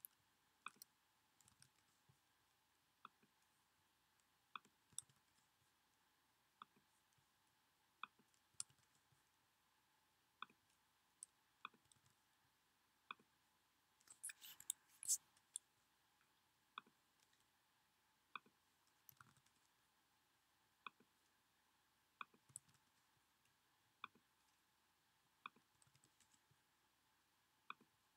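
Computer mouse clicks and keystrokes, a sharp click about once a second over a near-silent background, with a quick run of louder keystrokes about halfway through.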